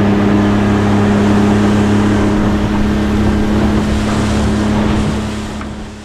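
A small boat's motor running at a steady pitch while the boat is underway, with wind and water rushing past. It fades out near the end.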